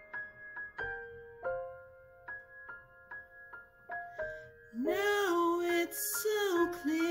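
Solo piano playing a slow ballad passage, single notes and chords ringing on. About five seconds in, a male tenor voice comes in singing over it.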